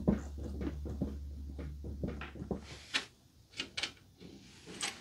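Scattered light clicks and knocks of a Honda ATV's metal front-suspension parts (A-arms and their pivots) being rocked and handled, over a low hum that stops about three seconds in. The pivots have new bushings and bearings and show no play.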